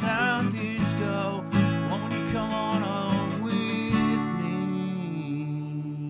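Acoustic guitar strummed with a male voice singing, then a final chord left ringing out from about four seconds in as the song ends.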